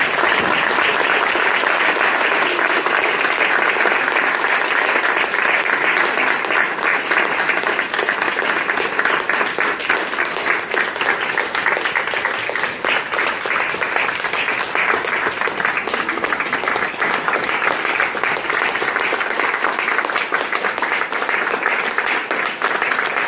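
Audience applauding: dense, steady clapping from a roomful of people that starts at once and keeps up without a break.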